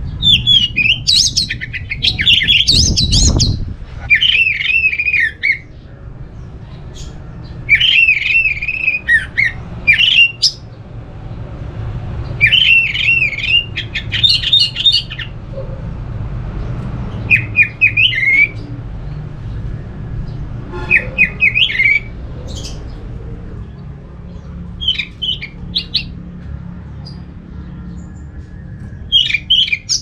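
Orange-headed thrush singing: about eight bursts of rapid, varied whistled phrases, each a second or three long, with short pauses between.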